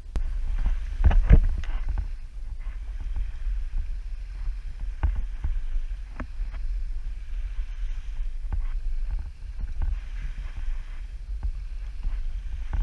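Wind buffeting the camera microphone in a steady low rumble, with a few sharp knocks of the camera being handled, the loudest cluster about a second in.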